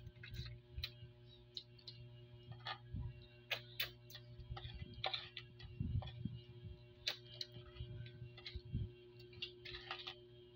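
Irregular clicks and crackles of cooked crab shells being cracked and picked apart by hand in a bowl of coconut-cream sauce, with a few dull thumps and a steady low hum underneath.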